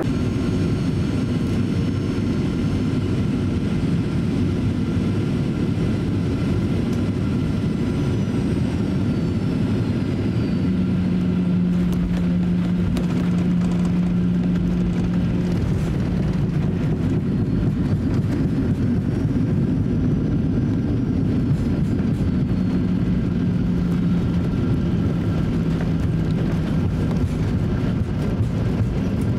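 Cabin noise inside a Boeing 737-800 with CFM56 engines as it lands: a steady, loud rush of engine and air noise. About twelve seconds in, the aircraft touches down, and a deeper rumble of the wheels rolling on the runway sets in, with a steady low hum for a few seconds around touchdown.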